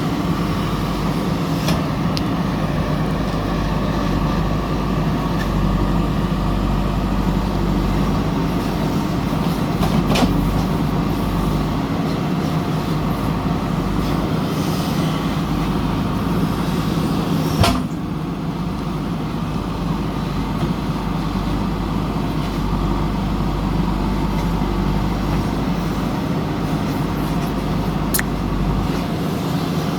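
Backhoe loader's diesel engine running steadily under work, with a few sharp metallic knocks.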